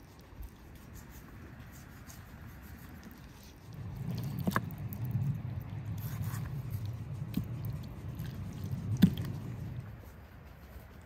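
Knife cutting through a raw chicken on a wooden cutting board: soft squishing and tearing of skin and flesh, louder from about four seconds in, with a few sharp knocks of the blade against the board, the loudest near the end.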